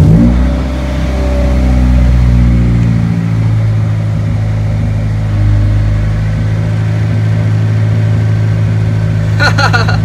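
Honda four-cylinder engine just caught after cranking, running fast at first and dropping over the first few seconds to a steady idle. It now runs on high-impedance injectors with the resistor box bypassed, curing a lean condition.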